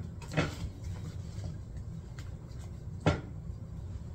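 Platform wedge sandals set down and shifted on a glass tabletop: a knock about half a second in and a sharper one about three seconds in, over a low steady hum.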